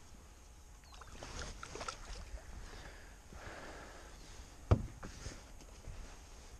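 Faint handling sounds of a fishing rod and line being worked by hand in a kayak, with one sharp knock about five seconds in.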